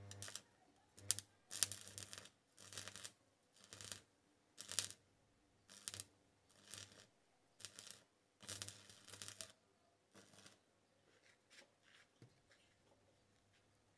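Stick (arc) welder laying a string of short arcs, about eleven bursts under a second each, roughly once a second, with the welding transformer humming under each. The bursts die away in the last few seconds.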